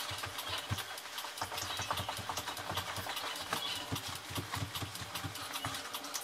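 Dance steps: shoes thumping and scuffing on the floor in an irregular run of soft thuds and clicks, over a steady background hum.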